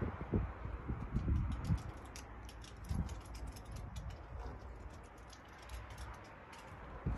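Soft thumps and light clicks of a phone being carried and handled, strongest in the first couple of seconds, then fading to faint scattered ticks over a low rumble.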